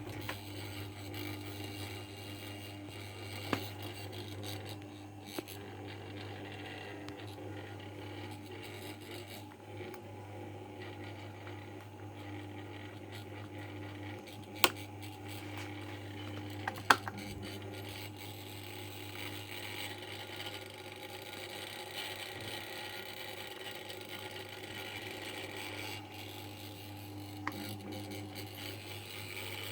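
Okayama OK1230 stand fan running with a steady buzzing hum and a rattle. A few sharp clicks break through, the loudest two a little past the middle.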